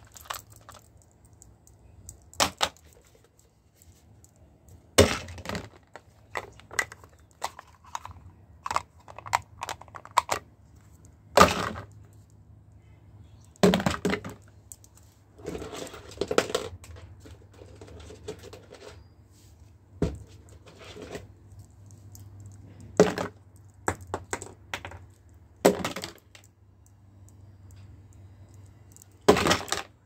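Plastic toiletry bottles being handled and set down one by one into a clear plastic tub: about ten sharp clacks and knocks at irregular intervals, with softer rustling and tapping between, over a faint low hum.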